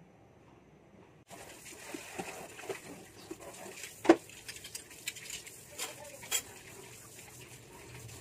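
Hands working a piece of raw pork in a plate of beaten egg and then flour: light wet patters and small clicks against the plates, with one sharp knock about four seconds in. The clicks and knock sit over a low room hiss that starts about a second in.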